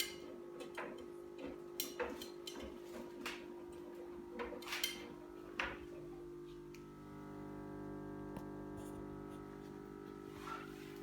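Electrolux EWG 147540 W built-in washing machine running with a steady tonal hum, with irregular clicks and knocks in the first half. About seven seconds in the hum changes pitch and grows slightly louder.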